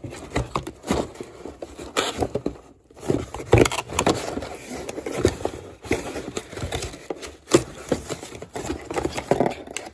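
Hand tools and their packaging being handled and set down: irregular scraping, rustling and clicking, with a short lull about three seconds in.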